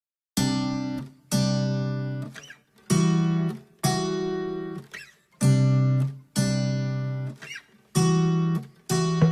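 Background music: acoustic guitar strumming a sequence of chords, each struck sharply and left to ring out, starting about half a second in after silence.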